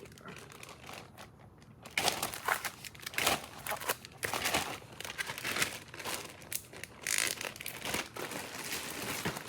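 Packaging and small pouches crinkling as they are handled and rummaged through, in irregular crackly bursts that start about two seconds in.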